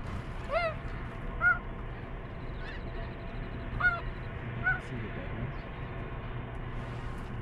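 Snow geese calling: single high, nasal honks spaced about a second apart, over a steady low rumble.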